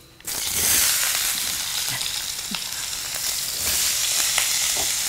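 Apple slices frying in hot cow ghee in a stainless-steel pan on an induction cooktop: a steady sizzle that starts suddenly about a quarter second in, with a few light ticks from stirring.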